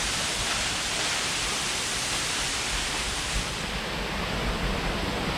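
Waterfall rushing, a steady loud rush of falling water; about three and a half seconds in, its highest hiss drops away.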